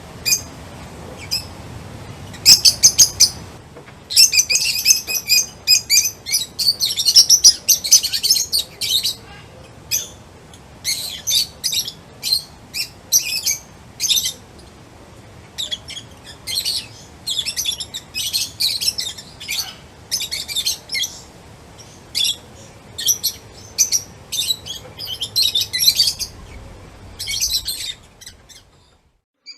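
Birds chirping and singing, quick high chirps and trills in bursts with short pauses, dying away near the end.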